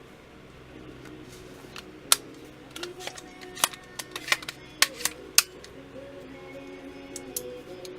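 Sharp clicks and clinks of AR-15 rifle parts being handled and fitted, about eight of them bunched in the middle few seconds, over quiet background music.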